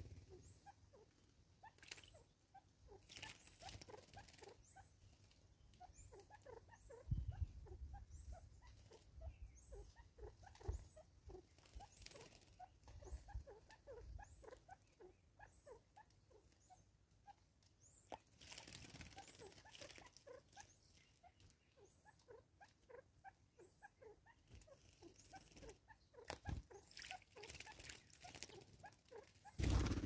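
Faint, rapid chirping of small birds with a thin high call repeating about once a second, and brief bursts of splashing as birds bathe in the water of a tyre bird bath. A few low thumps come about seven seconds in.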